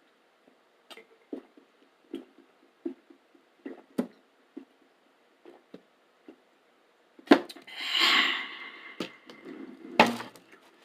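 Close-miked chewing of crunchy roasted garlic crackers, a short crunch about every half second. About seven seconds in comes a louder, longer noisy sound of about two seconds, and a sharp knock near the end.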